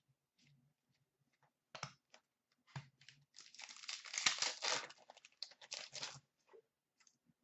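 A trading card pack's wrapper being torn open and crinkled by hand: a few sharp crackles, then about three seconds of dense crinkling in the middle.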